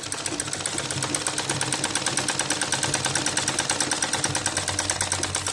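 Sewing machine running at a steady speed, stitching cotton fabric with a rapid, even clatter of the needle. It stops abruptly at the end.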